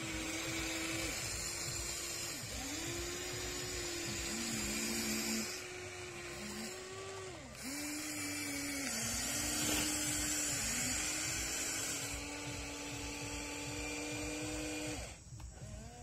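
Small electric motors of an RC excavator whining as the boom, arm and bucket move, the pitch dipping and gliding back up each time a movement starts or stops. The whine cuts off near the end.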